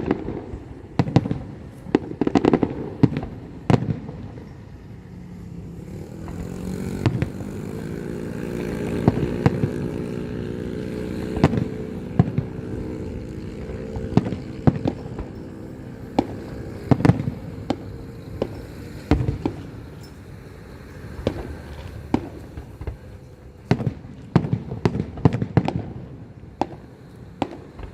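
Fireworks and firecrackers going off in irregular bangs and cracks, some in quick clusters. Through the middle a low drone swells and then fades.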